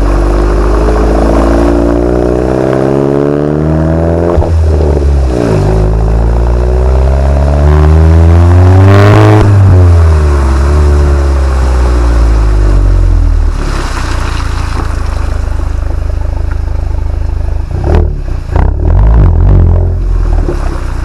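VW MK7 Golf GTI 2.0-litre turbo four-cylinder with its exhaust resonator deleted, being revved while stationary: the revs climb, drop back, then climb higher and fall away to idle, a louder, more echoing exhaust note than stock. A short spell of sharp clattering comes near the end.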